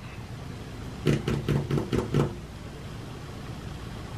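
Faint, muffled talking for about a second, beginning about a second in, over a low steady hum.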